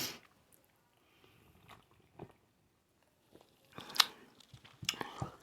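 A person chewing and biting food close to the microphone: soft, wet mouth sounds and scattered small clicks, with a sharper click about four seconds in and another cluster of chewing sounds near the end.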